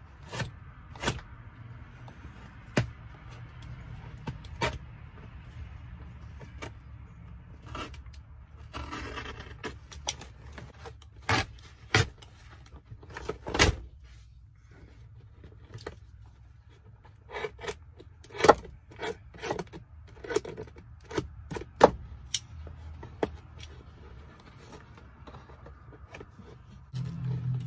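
Snap-off utility knife cutting through car floor carpet and its padding, with scattered sharp clicks and scrapes as the carpet is sliced and handled. There is a longer rasp of cutting or tearing about nine seconds in.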